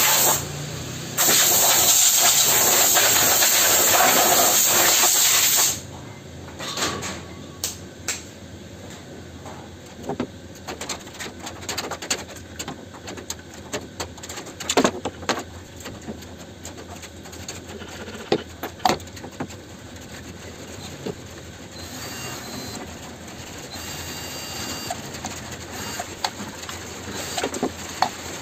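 Compressed-air blow gun blasting air over a Stanley circular saw to clear the dust: a short burst, then a longer blast of about four and a half seconds that stops about six seconds in. After that, scattered clicks and knocks as the saw and tools are handled.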